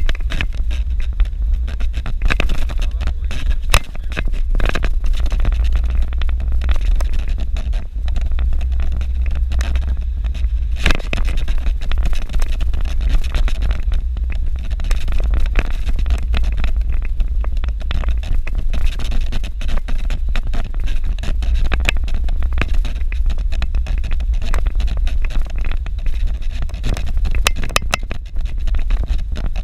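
Suzuki Jimny driving on a rough dirt road: a steady low rumble of engine and road, with frequent knocks and rattles from bumps.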